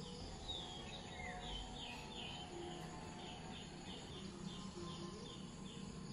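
Faint outdoor background with a bird chirping repeatedly: short, high, down-slurred notes, two or three a second.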